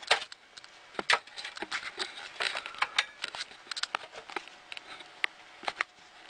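Handling noise: irregular light clicks and taps, several a second, as things are moved about close to a jostled camera.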